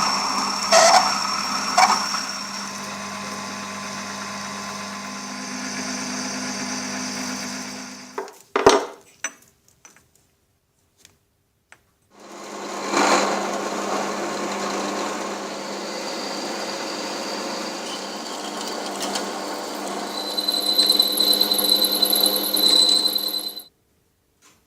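Workshop machine running with a steady motor hum, stopping about eight seconds in with a few sharp knocks. After a few seconds of silence it starts again and runs, a high whine joining near the end, then cuts off.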